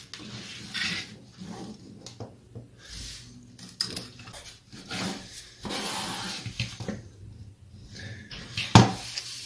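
A 3D-printed plastic laptop stand and its fan wiring being handled on a desk: irregular plastic knocks, rubbing and rustling, with a sharp knock near the end.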